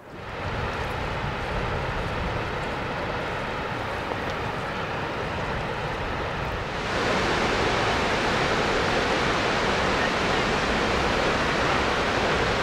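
Steady rushing of a large waterfall, Skógafoss, falling onto a gravel plain. About seven seconds in it becomes louder and brighter.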